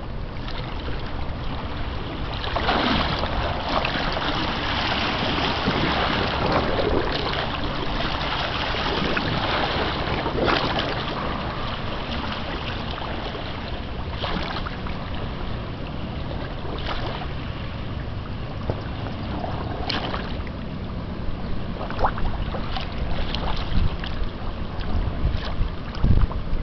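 Wind buffeting the microphone over a steady wash of river water, with a few sharp knocks near the end.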